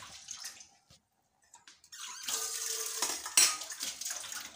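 Liquid sloshing and splashing with clinks of steel utensils against dishes. The sound drops out briefly about a second in, then comes back fuller with a sharp clink near the end.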